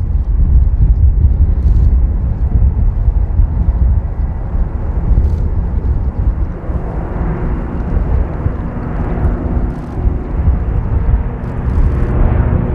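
ShinMaywa US-2 flying boat's four turboprop engines droning as it flies low overhead with its gear down. The drone is a heavy low rumble, and a set of steady propeller tones comes in about halfway and grows louder toward the end.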